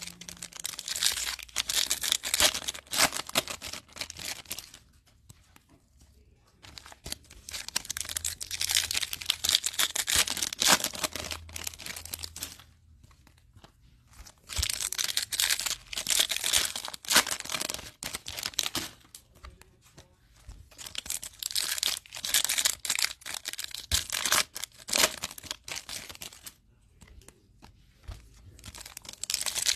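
Foil trading-card pack wrappers crinkling and tearing as packs are ripped open and the cards handled, in several spells of crackling rustle a few seconds long with short pauses between them.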